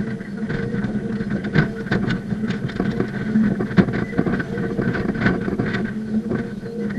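Hydraulic excavator's engine running steadily while the machine works, with frequent clanks and rattles from the working machine, heard close up from a camera mounted on it.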